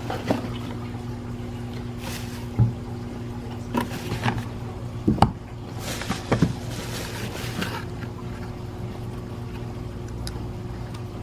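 Packaging being handled as a small box is opened and parts are taken out: scattered rustles, light knocks and scrapes, mostly in the first eight seconds, over a steady low hum.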